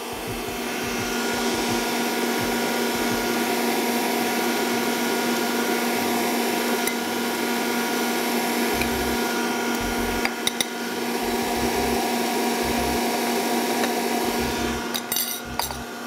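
Electric mixer running at a steady speed, beating eggs and sugar for a chocolate cake batter. A few clicks come about ten seconds in and again near the end.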